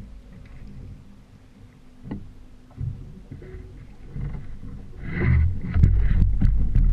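Small boat underway with its outboard motor running and water rushing past. About five seconds in the sound turns much louder, with a low rumble and a run of sharp knocks.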